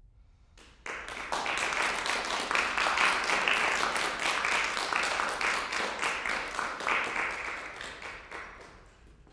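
Audience applauding, the clapping starting suddenly about a second in and fading away near the end.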